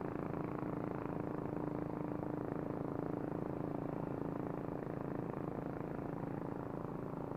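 A small motor running steadily, a constant low drone with no change in speed.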